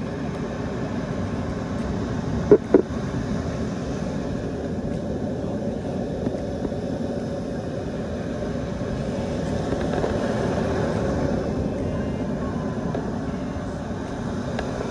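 Surf breaking and washing in over shallow water: a steady rush with a low rumble. Two short knocks come about two and a half seconds in.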